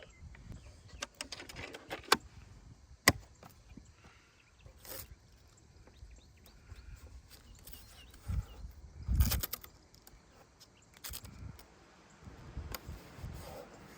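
A few sharp clicks and dull thumps over faint outdoor background noise.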